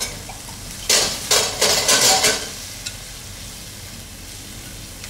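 Irish Mist liqueur poured into a hot pan of frying chicken and bacon for flambéing: a loud burst of sizzling about a second in, lasting about a second and a half, then the pan's steady frying sizzle.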